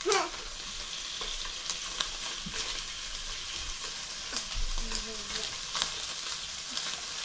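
Meat and mushrooms sizzling steadily in a hot tabletop pan, with occasional light clicks of chopsticks against the food and pan.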